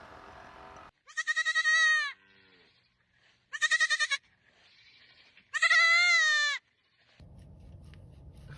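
A goat bleating three times: loud, high, quavering calls, each under a second long, a second or two apart.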